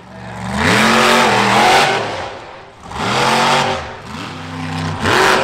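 Monster truck engine revving hard in three bursts, each rising sharply in pitch, holding briefly and then dropping off.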